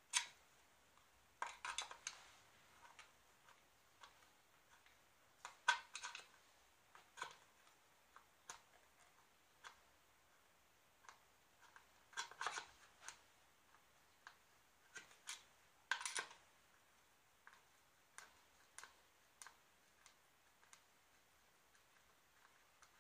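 A metal guitar bridge stud being levered and twisted out of its hole in the body with a hand tool: scattered sharp clicks and short scrapes at irregular intervals, a few coming in quick clusters.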